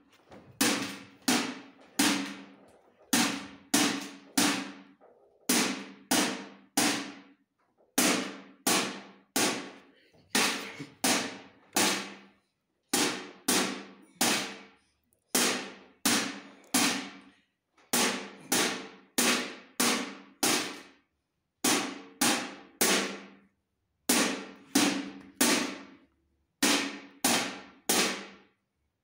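A drumstick beating a round metal biscuit tin in a steady rhythm, mostly in groups of four quick hits with a short pause between groups, each hit ringing briefly.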